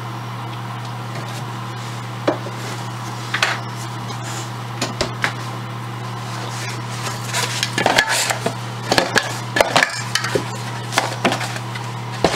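Scattered knocks and clatter of things being handled at a small refrigerator on a wooden shelf, growing busier for the last few seconds, over a steady low electrical hum. Near the end a coat sleeve brushes close past the microphone.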